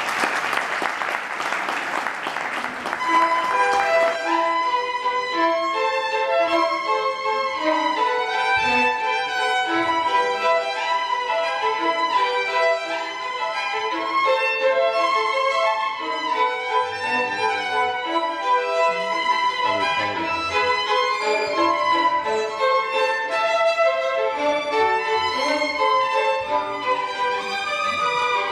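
Two violins playing a tango duet live, melodic and continuous. A burst of applause lies over the music for the first three or four seconds, then the violins carry on alone.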